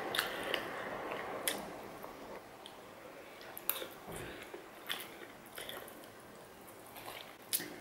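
A person chewing chow mein close to the microphone, with scattered sharp clicks as a metal fork picks at noodles in a foil takeaway tray. The loudest click comes near the end.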